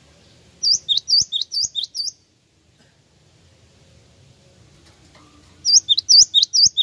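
Cinereous tit (gelatik wingko) singing: two quick bursts of repeated two-note phrases, a high note dropping to a lower one, each burst about a second and a half long, the second one near the end.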